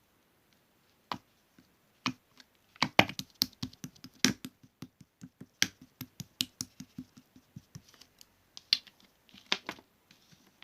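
Slime being played with by hand, giving a run of sharp, irregular clicks and pops, sparse at first and densest from about three to eight seconds in.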